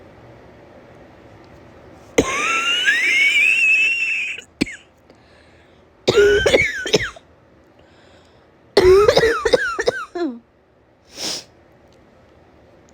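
A woman with a summer cold coughing hard. About two seconds in there is a long wheezy breath rising in pitch, then two harsh coughing fits, one around six seconds in and one around nine. A short sniffle comes near the end.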